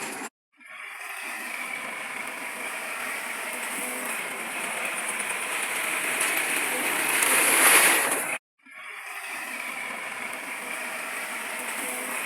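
Heavy earthmoving machinery working, heard as a noisy, clattering rumble with no clear engine note. It cuts out abruptly twice, about a third of a second in and about eight seconds in, and fades back each time. Just before the second cut it swells to its loudest.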